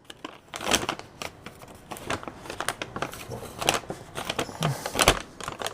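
Handling noise from hands at work: rustling and crinkling with scattered light clicks and taps.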